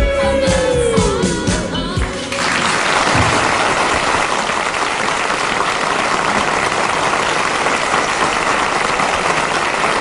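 A pop song ends on a last note that slides down in pitch. About two seconds in, a studio audience breaks into steady applause.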